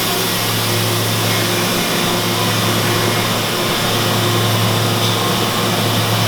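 Makino F5 CNC vertical machining center running: a steady mechanical hum with a constant hiss over it, unchanging throughout.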